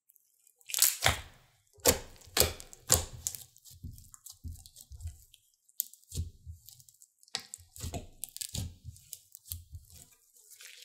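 Thick green slime being stretched, pressed flat and folded by hand, crackling and popping in a quick string of sharp clicks. The pops are loudest in the first three seconds and then come more sparsely.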